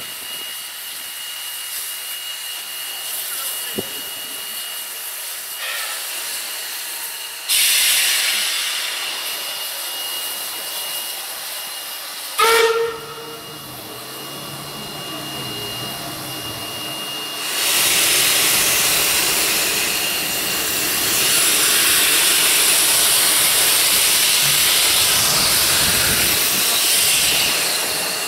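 Steam hissing from the 1925 narrow-gauge steam locomotive NM25, with a sudden louder gush of steam about seven seconds in and a short whistle toot about halfway through. For the last ten seconds the cylinder drain cocks blow steam loudly as the locomotive starts to move.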